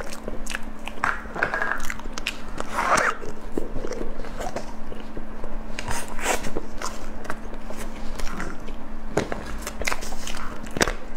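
Close-miked eating sounds: biting into and chewing a soft dessert taken from a plastic tube, with many wet smacks and clicks. A steady low hum runs underneath.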